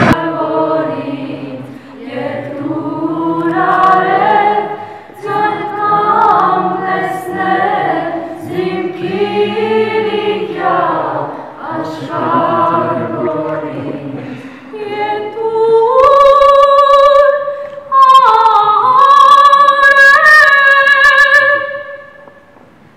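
A group of voices singing a cappella in several parts, without instruments, holding long notes in the later part and stopping shortly before the end.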